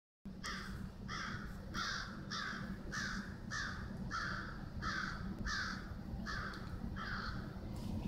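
Crow cawing in a long, steady series of about a dozen harsh caws, one every half second or so, over a low steady background hum.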